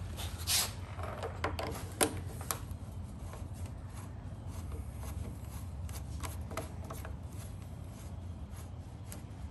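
Handling noises: a few sharp clicks in the first three seconds, the loudest about two seconds in, then faint rustling and small knocks over a steady low hum.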